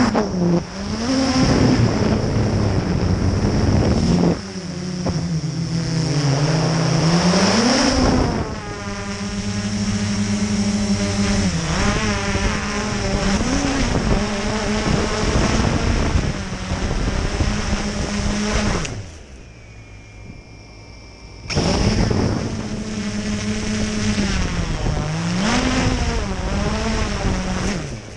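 Traxxas Aton quadcopter's motors and propellers whirring, the pitch rising and falling as the throttle changes. About 19 seconds in, the motors drop to a low hum for a couple of seconds, then spin back up.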